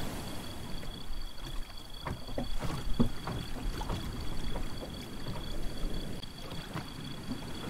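Water lapping against a moored boat and wooden dock, with irregular soft knocks. Two faint steady high-pitched tones sound underneath throughout.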